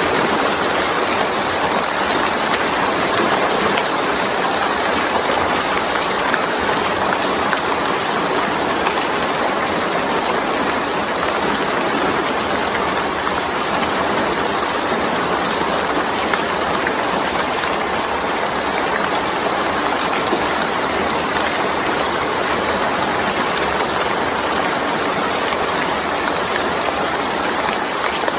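Steady heavy rain falling, an even, unbroken hiss with no individual drops or other events standing out.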